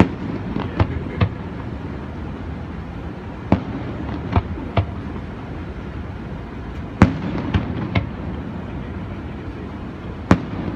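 Aerial fireworks shells bursting: about ten sharp booms at irregular intervals, the loudest about seven seconds in and another near the end, over a steady background hiss.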